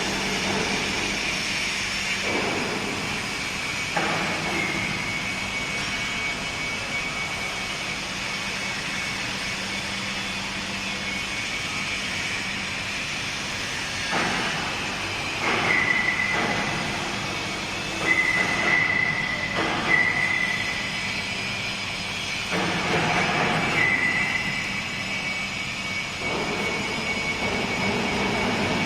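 Steady din of heavy industrial machinery with a low hum, broken in the second half by several short, high-pitched metallic squeals.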